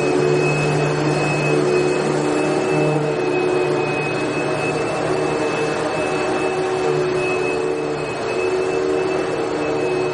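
Vacuum cleaner running steadily: a constant rush of air with a high, even motor whine and a low hum, unchanging throughout.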